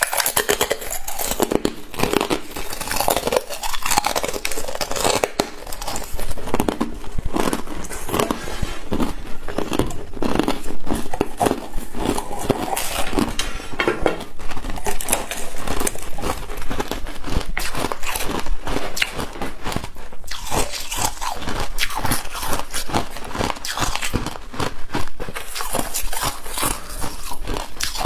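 Frost-coated frozen ice balls being bitten and chewed close to the mouth: a rapid, irregular run of crisp crunches as the ice and its coat of freezer frost break up between the teeth.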